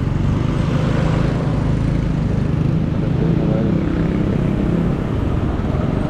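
Steady engine hum and road rumble of a moving vehicle, running evenly throughout.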